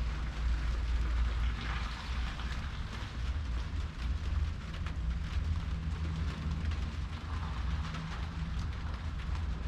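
Rain falling, with scattered drop ticks, over a steady low rumble.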